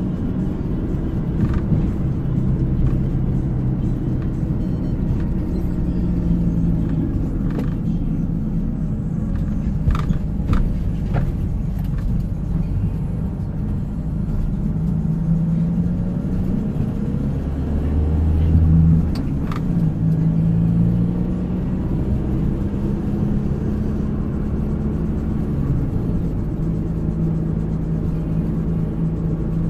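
Ambulance driving, heard from inside the cab: steady engine and road rumble with a low hum that shifts in pitch as the speed changes, swelling briefly a little past halfway. A few sharp clicks sound in the middle.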